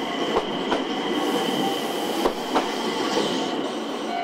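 Kobe Electric Railway 6000 series electric train passing close by, its steady rolling noise carrying a thin, high, steady wheel squeal. A few sharp clacks come as the wheels cross rail joints.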